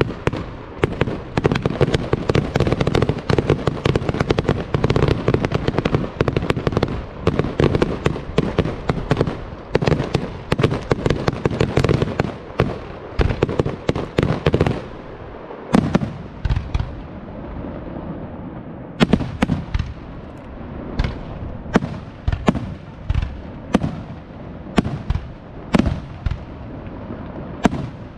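Professional fireworks display: a dense barrage of aerial shell bangs and crackling for about the first fifteen seconds, then thinning to separate bangs about once or twice a second.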